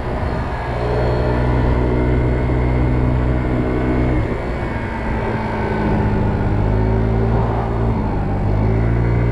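Kymco Agility 50 scooter's 50cc engine running steadily while the scooter rides along the road. Its note shifts about four seconds in and rises again near the end.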